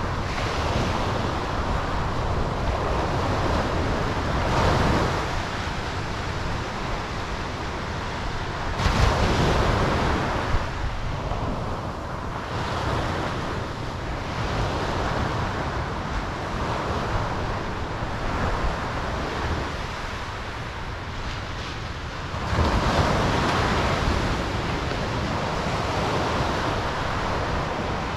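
Ocean surf washing in steadily, with waves breaking louder about four seconds in, again at about nine seconds, and once more past twenty-two seconds.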